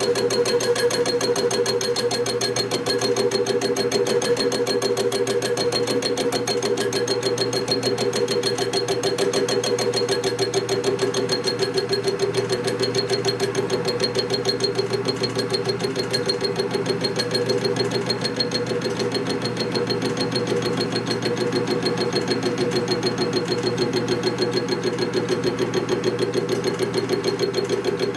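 Milling machine running steadily while its cutter machines an aluminum part, making a fast, even pulsing sound over a constant tone.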